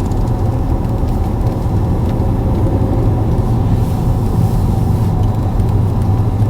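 Steady low rumble of a car being driven slowly, engine and road noise heard from inside the cabin.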